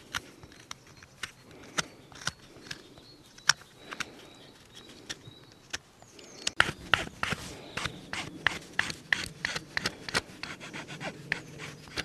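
Multitool knife blade shaving the edges of a green wooden tree fork: short scraping strokes, sparse at first, then quicker and closer together from about halfway through.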